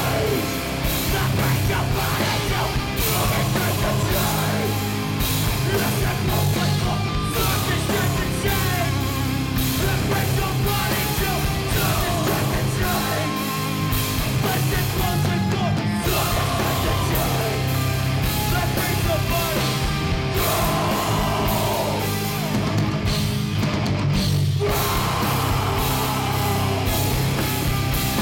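Rock band playing live: electric guitar and drums with a singer's voice over them, steady and continuous.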